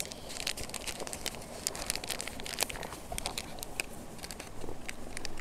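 Plastic bag and packaging crinkling in the hands, a string of irregular small crackles.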